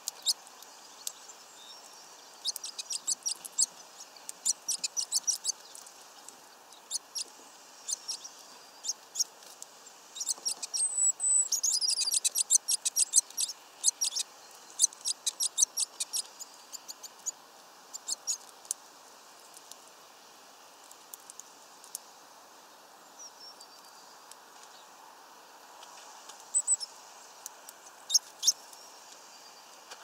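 Small birds pecking and cracking sunflower seeds on a wooden feeder perch: quick runs of sharp clicks and taps, densest in the first half and again near the end, with a couple of very short high chirps.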